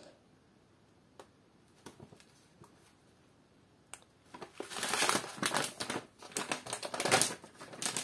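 A few faint clicks, then from about four seconds in a foil zip-lock pouch of oat flakes crinkles loudly as it is handled and folded.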